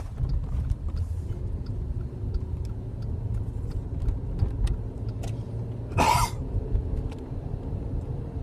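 Steady low road and engine rumble inside a moving car's cabin, with a few faint clicks and one brief noisy burst about six seconds in.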